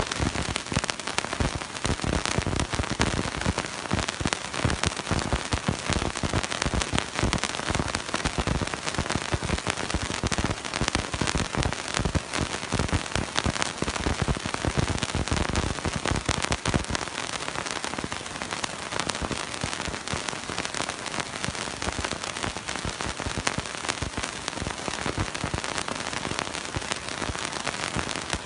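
Wind buffeting a phone microphone on a moving motorcycle: a dense, crackling rush of noise that is heavier and rougher in the low end for about the first 17 seconds, then eases a little.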